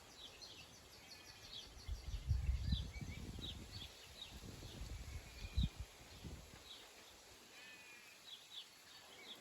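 Small birds chirping with many short, repeated high notes, while a low rumbling rises for a few seconds in the middle with a sharp thump near its end.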